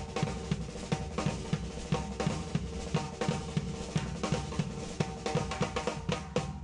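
Live band playing an instrumental passage: a drum kit drives a steady beat of snare, bass drum and hi-hat under sustained accordion and electric guitar parts.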